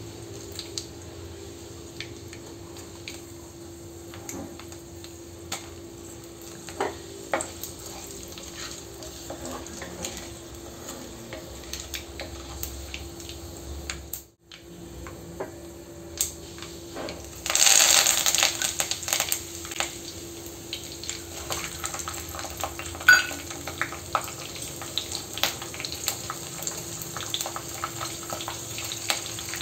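Mustard seeds and urad dal crackling and popping in hot sesame oil in a clay cooking pot, over a steady hum from the induction cooktop. A little over halfway through, more ingredients hit the oil with a sudden loud sizzle that settles into steady sizzling and crackling.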